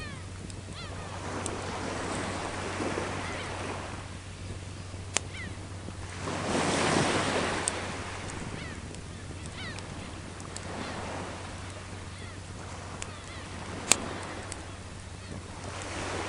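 Sea waves washing onto the shore in slow swells, the loudest about seven seconds in. A wood fire crackles with a few sharp pops, one louder snap near the end.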